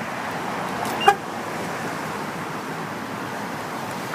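A single short, pitched chirp from the Yukon's aftermarket remote-start alarm system about a second in, the kind of confirmation chirp it gives on lock or unlock. Another chirp begins right at the end, over a steady background hiss.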